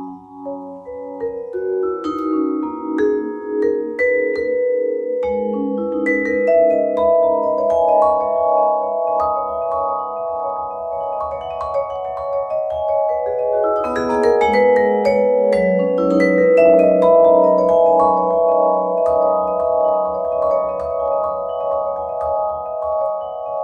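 Solo Musser vibraphone played with four mallets: chords and melody of long-ringing metal-bar notes that overlap and sustain into one another.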